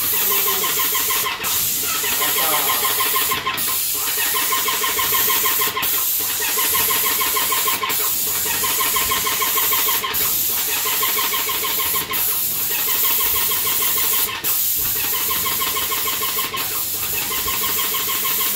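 e-Power X9 airless paint sprayer running while paint is sprayed: the pump drones with a fast, even pulsing buzz over the hiss of paint from the spray gun. The sound dips briefly about every two seconds.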